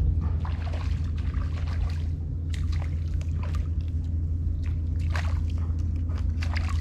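Water splashing and trickling in irregular short strokes over a steady low hum.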